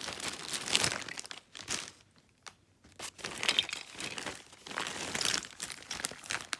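Clear plastic bag and cellophane-wrapped trinkets crinkling as they are handled and shuffled through, stopping for about a second two seconds in, then starting again.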